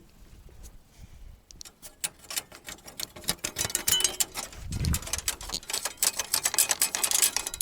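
Rapid, irregular metallic clicking and tapping from hand tools working on truck parts, starting about a second and a half in and growing denser, with one low thump near the five-second mark.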